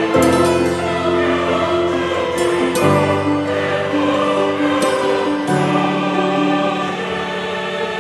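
Background music with sustained choir-like voices holding long chords, which shift about three seconds in and again about halfway through.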